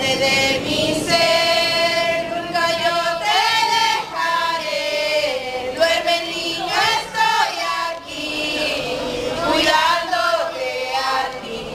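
Women's voices singing a Christmas song together, with long held notes.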